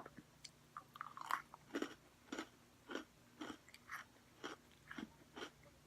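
Close-miked chewing of a Cherry Cola Oreo with popping candy, a soft crunch about twice a second.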